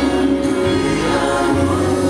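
Background music: a sung gospel song, with long held notes.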